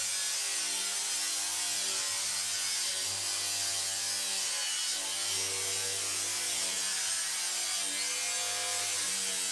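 DeWalt angle grinder with a metal cutoff wheel cutting through corrugated steel roofing: a steady, high-pitched grinding hiss.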